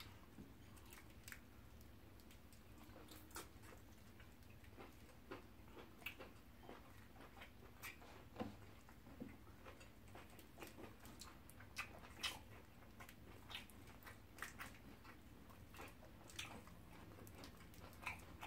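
Faint chewing and mouth clicks of people eating fufu and soup by hand, in many scattered short clicks.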